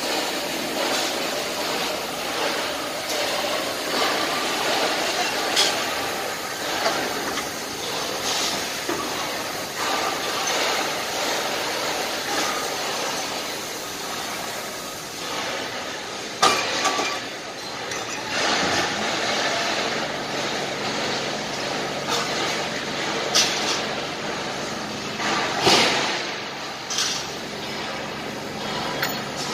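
Gantry crane trolley travelling along the girder: a steady mechanical rumble of motor and steel wheels with a few sharp metallic clanks, the loudest about halfway through and near the end. A low steady hum joins in about two-thirds of the way through.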